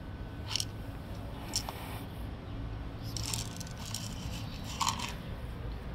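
A cat eating dry kibble close by, with scattered crunches and clicks as it bites and chews the pieces.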